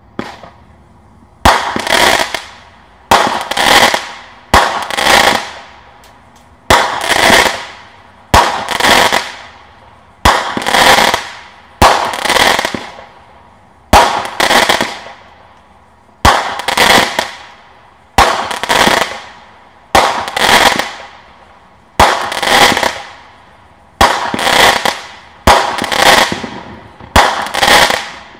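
Brothers 'Left in the Dark' 15-shot consumer firework cake firing: about fifteen shots, one every one and a half to two seconds. Each shot is a sharp launch thump followed by the shell breaking and crackling as the golden-tailed palm and glitter stars burst.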